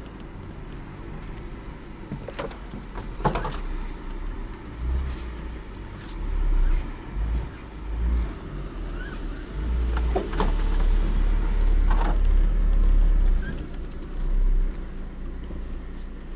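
Lada Niva's engine running as the car crawls over a rough forest dirt track, a low rumble that swells several times, with a few knocks and rattles from the body and suspension.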